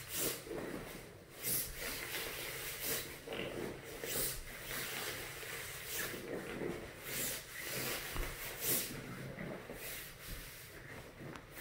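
Air rushing out of a Veer air pad's open deflation valve in repeated surges about every second as the pad is pressed and rolled, with the pad's fabric rustling.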